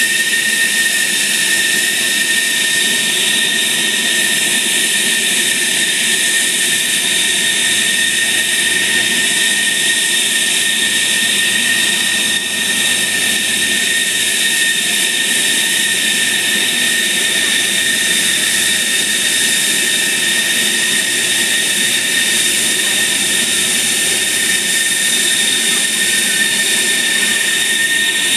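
F-16 fighter's jet engine running steadily while parked for pre-flight ground checks: a high, even whine over a loud rush of noise, unchanging in pitch and level.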